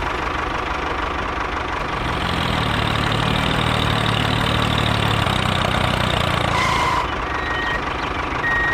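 Tractor engine idling, growing a little louder and deeper about two seconds in and settling back about seven seconds in. A couple of short high beeps come near the end.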